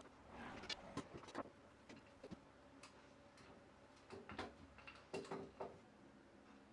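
Faint scattered light taps and clicks, some in quick clusters of two or three, with a soft rustle about half a second in, over a quiet low hum.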